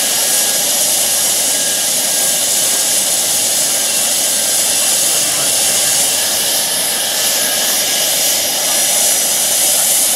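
Model helicopter's small gas turbine running steadily on the ground, a loud, even jet hiss with the main rotor turning slowly.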